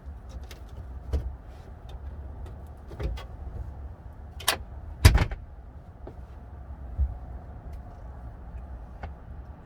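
Scattered knocks and clanks of hand tools and metal parts inside a minivan during work on stubborn floor screws, the loudest about five seconds in.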